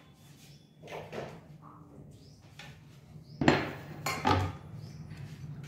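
Plastic chopping board and kitchen scissors set down on a kitchen counter: light handling noises, then two sharp clattering knocks well past the middle, less than a second apart.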